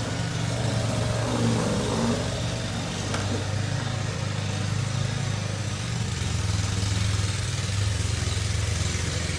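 Snow blower running with a steady low hum.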